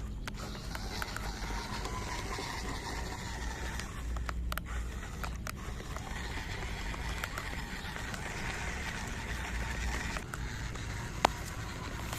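Small RC car driving over rough ground: the motor whines unevenly while the wheels scrape and rattle over dirt, with scattered clicks and one sharp knock about eleven seconds in.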